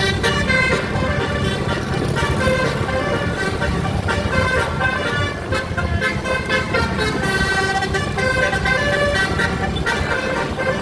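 Indonesian bus telolet horn, a set of musical air horns, playing a tune of quick changing multi-tone toots over a steady low rumble.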